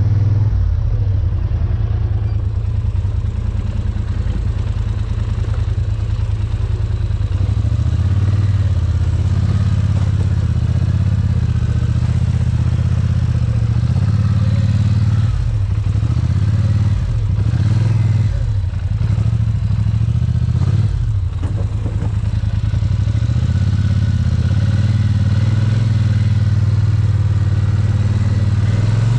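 An ATV engine runs steadily under throttle as it is ridden over rough ground. About halfway through, the drone dips and picks up again several times as the throttle is eased off and reapplied.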